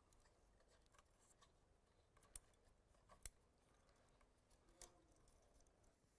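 Near silence, broken by a few faint, sharp clicks of small parts being handled as the control signal cable is fitted into the positioner housing; the three clearest come about two and a half, three and a quarter, and almost five seconds in.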